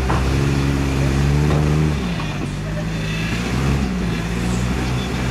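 Rock-crawler buggy engine revving under load as it climbs a steep rock ledge. The revs rise just after the start, drop back about two seconds in, and pick up again near the end.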